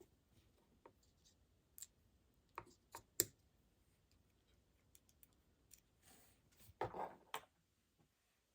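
Small plastic parts of an electric shaver clicking against each other as they are handled during disassembly: scattered light clicks, the sharpest about three seconds in, and a short rustle of handling with more clicks around seven seconds in.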